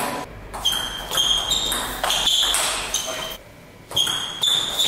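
Celluloid-type table tennis ball knocking against bats and the table top in a quick string of sharp, high-ringing ticks, about three or four a second. There is a short pause a little over three seconds in.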